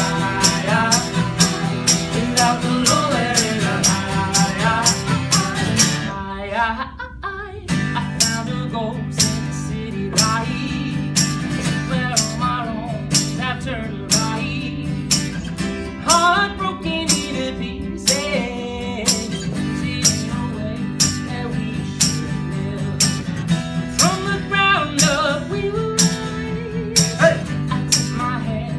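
Live acoustic band music: two acoustic guitars strumming under hand percussion that keeps a steady beat of about three hits a second, with wordless sung lines over the top. The band drops out briefly about six seconds in, then comes back in.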